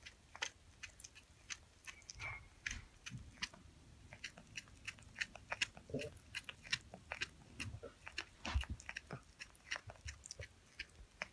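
Cat chewing on a length of blue yarn: faint, irregular clicks of its teeth, often several a second.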